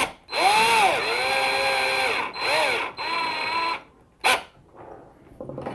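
Cordless drill-driver motor running in three trigger pulses, each spinning up, holding speed and winding down, driving a screw into the RC truck's steering link. A single sharp click about four seconds in.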